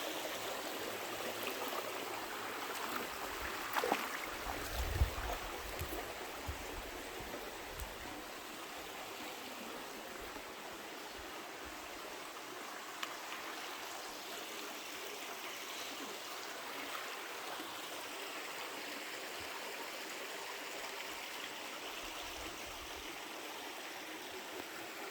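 Shallow creek water running steadily, a continuous babbling flow. A few dull bumps stand out between about four and eight seconds in.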